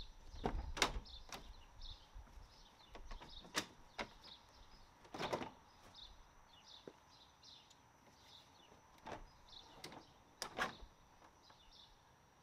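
Scattered plastic clicks and knocks from the front bumper cover and grille trim of a 2021 Hyundai Sonata N Line being worked loose by hand, with a cluster of louder knocks near the end. Birds chirp faintly in the background.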